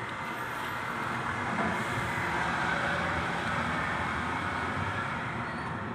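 Steady rumbling background noise, swelling a little about two seconds in and easing off near the end.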